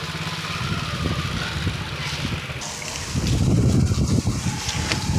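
Wind buffeting the phone's microphone as an uneven low rumble that gets louder about three seconds in, over the slosh of floodwater being waded through.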